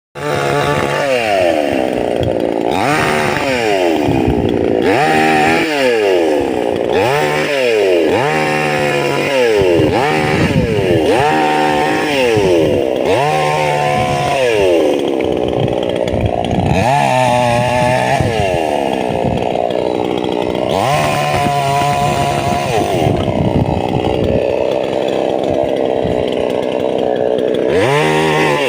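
Chainsaw engine revving up and down over and over, its pitch rising and falling every second or two, with longer held stretches in the second half.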